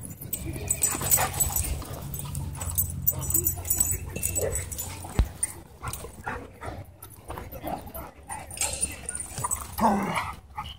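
Dogs playing together, giving short yips and whimpers, with one longer cry falling in pitch near the end.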